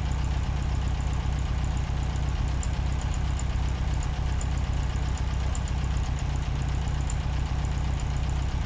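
A steady low hum with an even background hiss, unchanging throughout.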